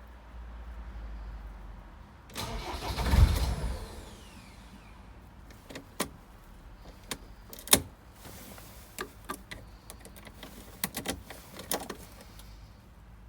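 Land Rover Defender 2.4 TDCi Puma diesel briefly turned over on the starter for about a second and a half without firing, the no-start a faulty camshaft position sensor causes. Then a string of sharp clicks and knocks, one loud knock in the middle.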